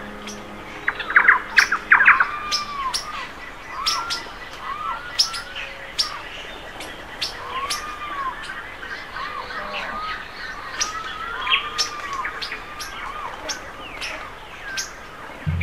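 Jungle birds calling: repeated short arched whistles and sharp high chirps from several birds, with a quick flurry of chirps about a second in.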